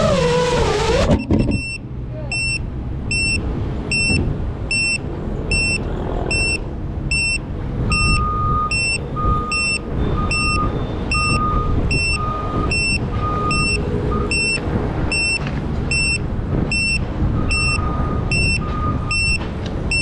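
FPV quadcopter's motors winding down and stopping about a second in as it lands. Then a beeper sounds regular high beeps, about two a second, with a slower, lower beep of about one a second joining in for stretches, over a steady low rumble of ambient noise.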